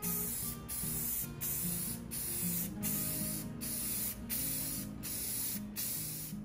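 Krylon clear-coat aerosol can hissing in a run of short sprays, broken off briefly about every two-thirds of a second as light coats of clear finish go on.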